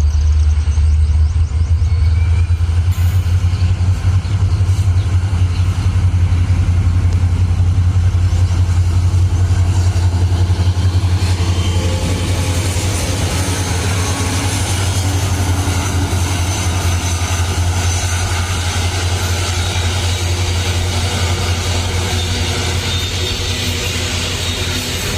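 Indian Railways WDP4D diesel locomotive's EMD 16-cylinder two-stroke engine running close by with a deep, steady drone. A broader hiss of rolling noise builds in about halfway through.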